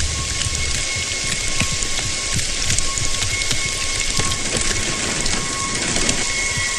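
Steady rain falling, with many separate drop hits patter through it. A low rumble fades out about a second in.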